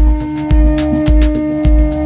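Background music: electronic-style track with a steady kick drum about twice a second, ticking hi-hats, and a long held synth tone.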